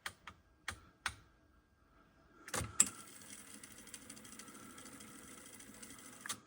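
Sony TC-K777 cassette deck: a few sharp clicks of its switches, then a clunk as the transport engages in playback, followed by a steady hiss of the tape running for about three and a half seconds. It ends with another click.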